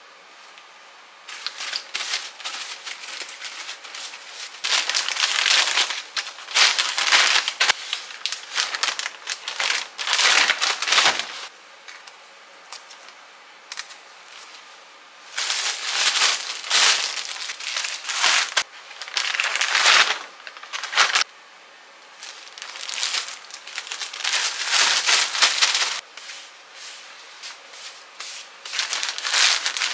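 Thin plastic food-storage bags crinkling and rustling as they are handled and filled, in repeated bursts of a second or two with short pauses between them.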